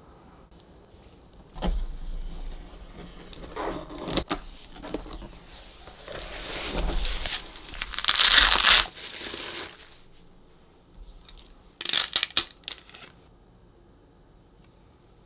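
Packaging being handled: cardboard box flaps and bubble wrap rustling and crinkling in a run of bursts, loudest about eight seconds in. A quick cluster of sharp plastic crackles follows near twelve seconds as a clear plastic sleeve is handled.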